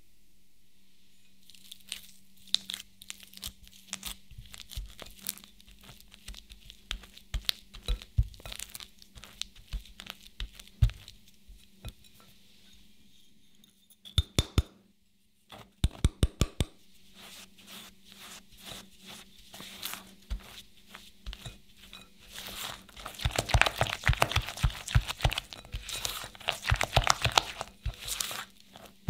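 Softened butter being pressed and stirred with a silicone spatula in a glass mixing bowl while salt and powdered sugar are added: irregular soft clicks, taps and scraping against the glass, growing denser and louder for the last several seconds.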